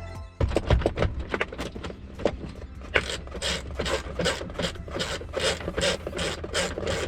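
Gravel bicycle's drivetrain clicking and ticking as it is ridden, settling about halfway into a regular run of about three ticks a second over a steady low rumble.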